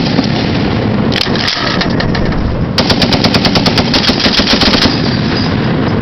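.50 calibre heavy machine gun firing: a single shot about a second in, then a burst of about twenty rounds lasting about two seconds, at roughly ten rounds a second.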